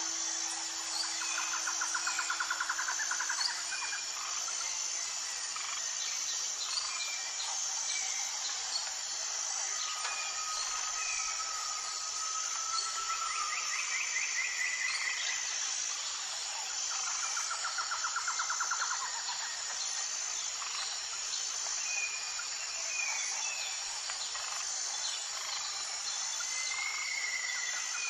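Several songbirds singing over a steady, high-pitched insect chirring. The birdsong includes repeated fast trills, a drawn-out whistle near the middle and short chirps scattered throughout.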